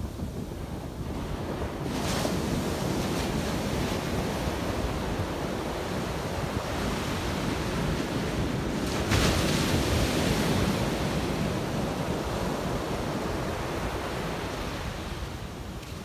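Small ocean waves breaking and washing up a sandy beach. The surf swells about two seconds in and again, more strongly, around nine seconds in, with a steady wash in between.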